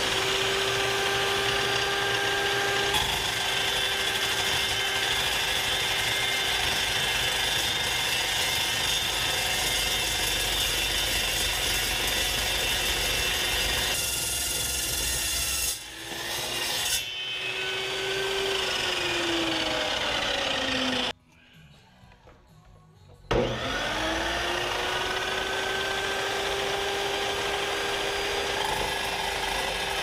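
Evolution dry-cut metal chop saw with a carbide-tipped blade, running and cutting steel: a scraping, rasping cut over the motor's steady whine. The whine rises as the motor spins up at the start, falls as it winds down around 18 seconds in, stops for about two seconds, then rises again as the saw restarts and cuts.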